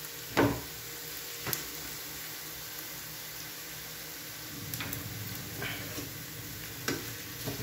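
Steady sizzle of garlic, onion, ginger and chili sautéing in hot oil, with a few light clicks.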